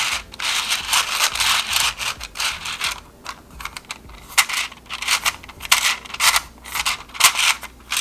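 Nested hexagonal rings of a handmade fidget toy sliding and rubbing against each other as the base is tilted: a dense rustling scrape with quick clicks for the first few seconds, then thinner, scattered clicks and short rubs.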